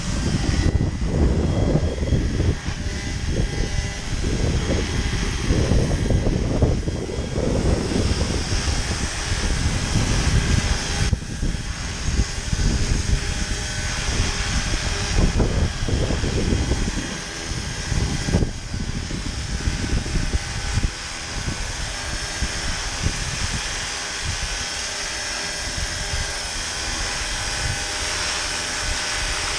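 Roban 700-size Black Hawk scale RC helicopter in flight, its electric motor and rotors giving a steady whine. Gusty wind buffets the microphone with a low rumble that dies down about two-thirds of the way through.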